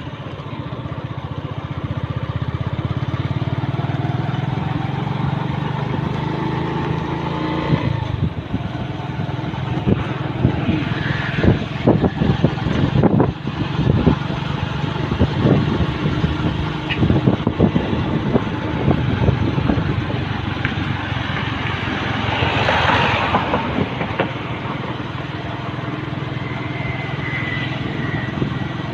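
Motorbike engine running steadily while riding along a road, with wind buffeting and knocking on the phone microphone through the middle stretch.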